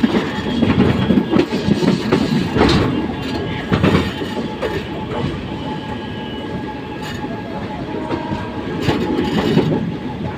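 Express train coaches rolling over points and rail joints, heard from an open coach door: a steady rumble of wheels on track, with loud clattering knocks as the wheels cross the joints, three of them standing out.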